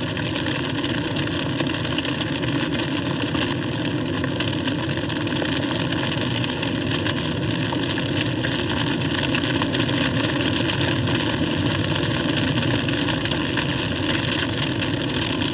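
Crown fire burning through lodgepole pines: a steady, loud rushing noise with fine crackling throughout.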